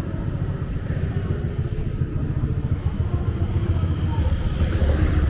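Street traffic: a steady low rumble of vehicle engines that grows louder near the end as a vehicle comes closer.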